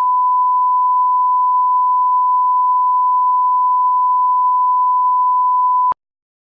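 Steady 1 kHz sine test tone, the line-up tone of a video leader, held at one pitch and cutting off suddenly near the end.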